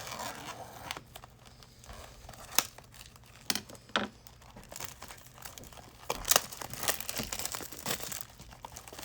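Wrapping being torn off a sealed box of trading cards: crinkling and tearing, with a few sharp snaps, busier in the second half.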